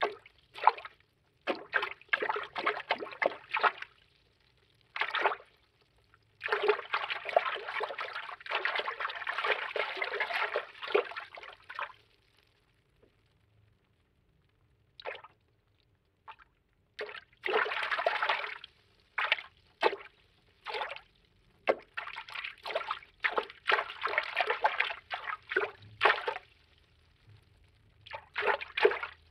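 Cartoon underwater water-movement foley: quick bursts of moving water in irregular clusters. There is one longer run of about five seconds a few seconds in, and a few short quiet gaps.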